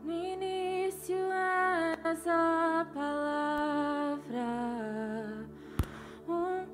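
Worship song: a singing voice holding long notes and gliding between them, over soft sustained chords from a Yamaha synthesizer keyboard. A sharp click comes about six seconds in.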